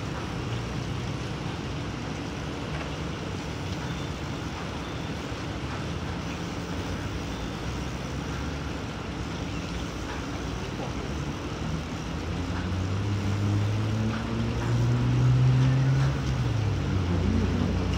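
Steady outdoor background noise, with a low engine hum swelling in about two-thirds of the way through, loudest near the end, then dropping in pitch as it passes.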